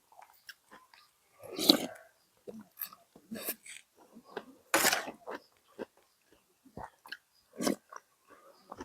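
Close mouth sounds of someone eating braised-beef noodle soup: chewing and slurping in short, irregular bursts, the louder ones about two, three and a half, five and eight seconds in.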